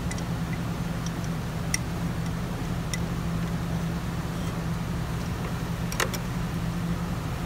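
A few light metallic clicks of hand tools and a bolt against the aluminium oil filter housing and engine, the loudest a double click about six seconds in, over a steady low background hum.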